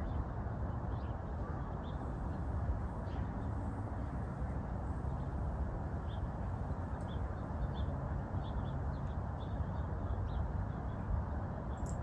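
Outdoor background of a steady low rumble, with faint, short bird chirps scattered throughout.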